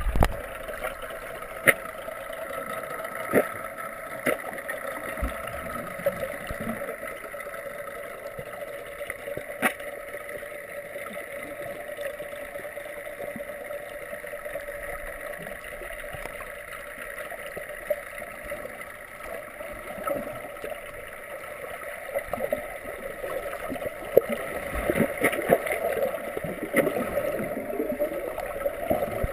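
Underwater sound picked up by a submerged camera: a steady muffled water noise with a faint hum, scattered sharp clicks and knocks, and gurgling. It grows louder and choppier near the end as fins kick at the surface.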